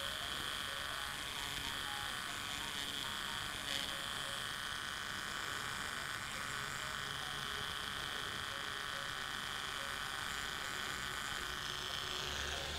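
Small handheld electric grinding tool buzzing steadily as its tip grinds the plastic edge of a SIM card adapter.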